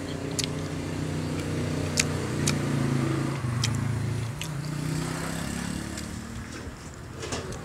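A motor vehicle engine running, its low hum shifting slightly in pitch, fading out after about six seconds. A few sharp clicks come from a fork and prawn shells being handled.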